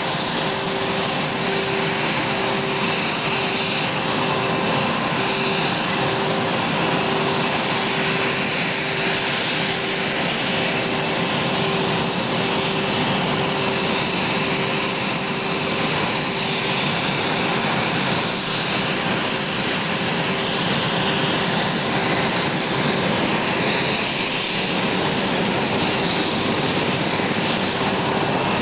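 A VH-3D Sea King helicopter's twin turboshaft engines run with its rotors turning on the ground, giving a steady high turbine whine over a constant rushing noise.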